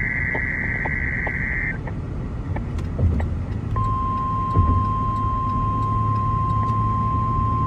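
NOAA Weather Radio test signals: the tail of a SAME digital header burst, a buzzing data tone, cuts off about two seconds in. After a short gap, the steady single-pitch warning alarm tone starts a little before the four-second mark and holds, over a low steady rumble.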